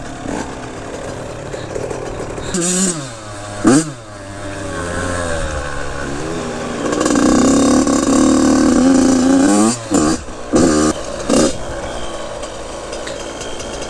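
Dirt bike engine revving on a trail ride: two quick throttle bursts that fall away, then a loud steady pull under load that cuts off suddenly, followed by three short throttle blips near the end.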